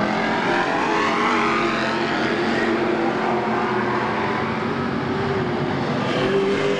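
Stock car engines running at racing speed on a dirt oval, several cars at once, their pitch rising and falling as they pass.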